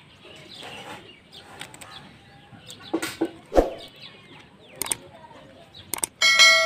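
Plastic parts of a broken toy airliner clicking and knocking as they are handled and pressed together, a few sharp clicks with birds chirping in the background. Near the end a loud bell-like ding rings out and slowly dies away: the chime of a subscribe-button animation.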